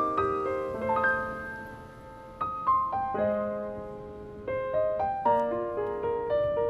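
Background piano music: single notes and chords struck one after another, each ringing out and fading.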